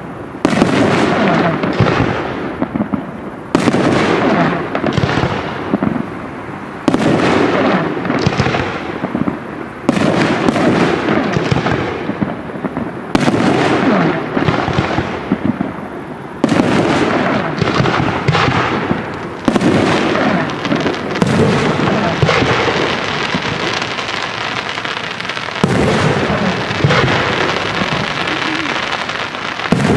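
Aerial firework shells bursting: a sharp bang every one to three seconds, each trailing off in a long echoing rumble. From about two-thirds of the way in the bursts come so thick that they merge into a continuous rumble.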